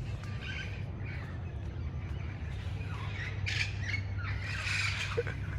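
Red-crowned parrots squawking, harsh scattered calls that grow louder and more frequent about three and a half seconds in, over a steady low hum.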